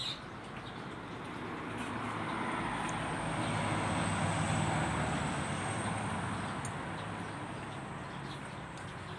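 A motor vehicle passing by: its engine and road noise swell to a peak about four to five seconds in, then fade away.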